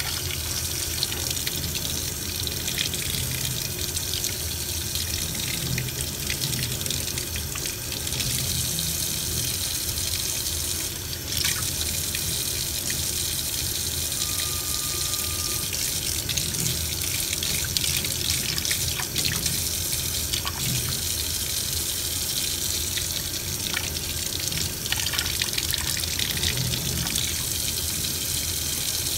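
Water running steadily from a pull-down faucet into a stainless steel sink, the stream splashing over a bath sponge held under it.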